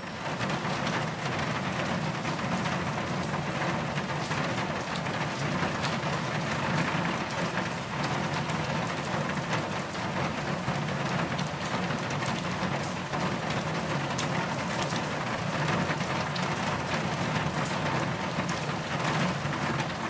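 Rain pattering steadily on a car's windshield and roof, heard from inside the car.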